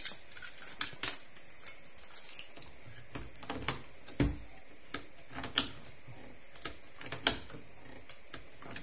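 Hand pop-rivet gun being worked on an aluminium case-edge profile: separate sharp clicks and snaps a second or two apart, the loudest a little past the middle, with one dull thump near the middle.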